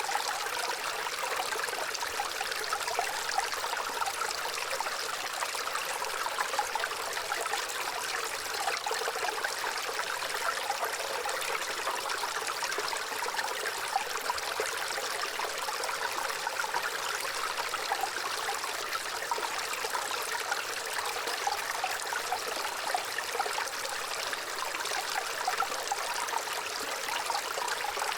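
Shallow water running and trickling steadily, a continuous splashing rush with little low rumble.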